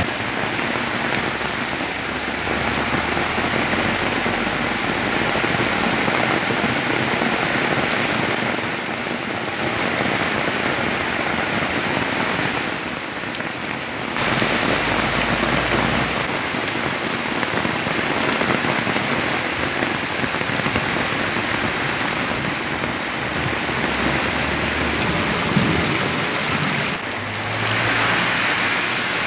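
Torrential rain pouring onto pavement and flooded street, a dense, steady hiss. Near the end, a car's tyres wash through the runoff water.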